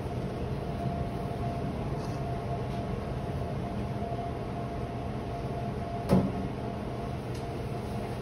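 Steady machine hum with a low drone and a thin high tone, and a single sharp knock about six seconds in.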